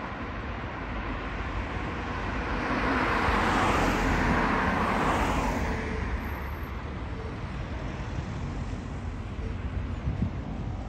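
A vehicle passing by, its noise swelling for a few seconds and then fading, over a steady low wind rumble on the microphone.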